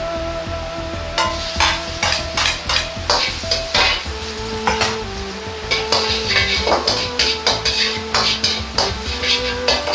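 Minced garlic and dried chili sizzling in oil in a wok, stirred with a metal ladle that scrapes and clinks against the wok again and again from about a second in. Soft background music plays underneath.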